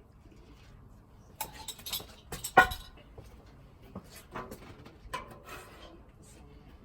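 Knocks, clinks and scrapes of kitchen utensils and dishes being handled while burgers are put together: a busy cluster about a second and a half in with one sharp loud knock, then a few softer knocks.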